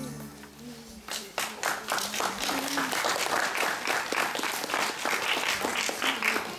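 Audience applauding, starting about a second in as the last notes of the music die away. The clapping goes on at a steady level, with faint voices underneath.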